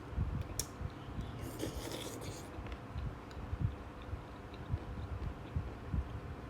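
A person chewing food close to the microphone, with soft, irregular mouth sounds throughout, a click about half a second in, and a brief scraping rustle around one and a half to two and a half seconds in.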